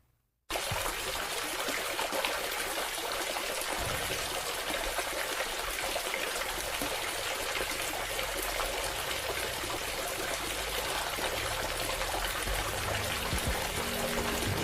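Water trickling and pouring steadily from a small DIY model submersible water pump, starting suddenly after a brief silence.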